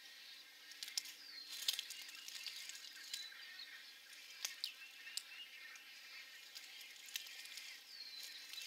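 Faint bird calls from a nesting colony: scattered sharp clicks and short chirps, and twice a high falling whistled note, over a steady high hiss.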